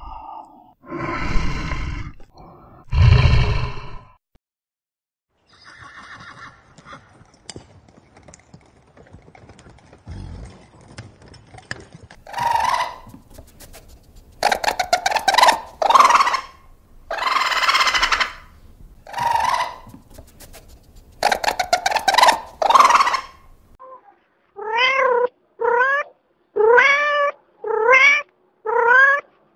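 Two deep, loud animal roars, then after a pause a run of harsh, noisy yowling calls. It ends with a domestic cat meowing six times in quick succession, each meow short and rising in pitch.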